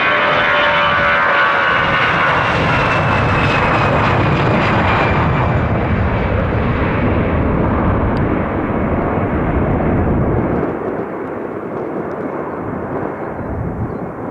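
Air Canada Rouge jet airliner on its takeoff run: a loud jet roar with a high multi-tone engine whine that slowly falls in pitch over the first few seconds. The roar eases off about ten seconds in.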